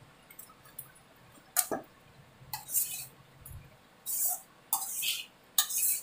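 Spatula scraping and clinking against a kadai while stirring a thick almond-flour halwa mixture, in short strokes that start about a second and a half in and come every half second to a second.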